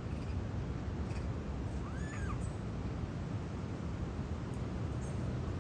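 A single short rising-then-falling call from a long-tailed macaque about two seconds in, over a steady low rumble of background noise.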